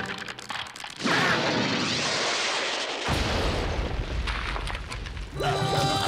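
Cartoon crash sound effects as a wooden cabin is wrecked: a loud, noisy crash about a second in, then a deep boom about three seconds in that rumbles on for a couple of seconds. Music comes in near the end.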